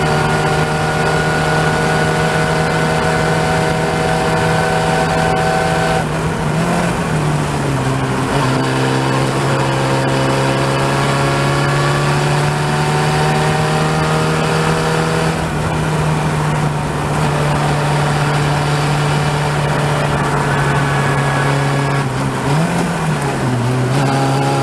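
Open-wheel race car engine heard onboard, pulling hard with its pitch climbing steadily, over steady wind and road noise. Twice, about six seconds in and again near the end, the note falls with a short jump in pitch as the driver lifts and shifts, then climbs again.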